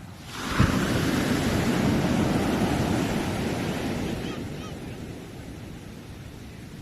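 A sea wave breaking on the shore: a sudden crash about half a second in, then the hissing wash of surf that slowly dies away over the next few seconds.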